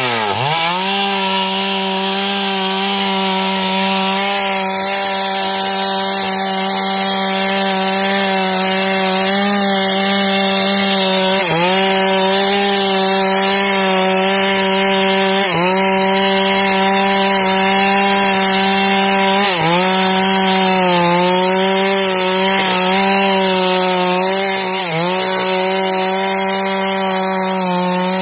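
Stihl chainsaw at full throttle ripping a manglid log lengthwise into planks. The engine rises to speed at the start, then holds a steady pitch under load, dipping briefly about four times as the cut bogs it.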